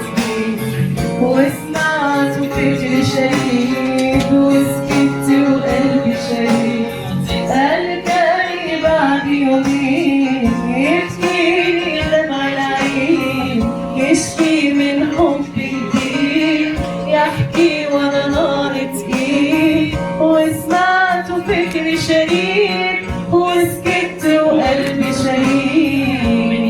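Moroccan folk music: a ghaita, the double-reed shawm, plays a continuous, ornamented melody over steady held tones, with sharp percussive strokes throughout.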